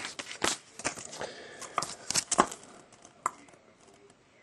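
Paper and card stock being handled: a run of crisp rustles and light clicks as a trading card and a large folded paper checklist are moved about, dying away after about three seconds.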